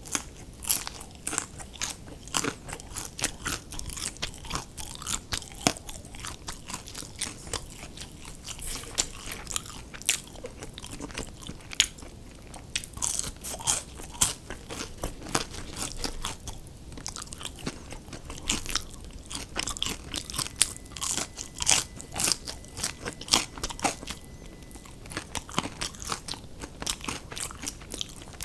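Close-miked chewing of crunchy fried fast food: a dense run of crisp crunches and bites, broken by short pauses between mouthfuls.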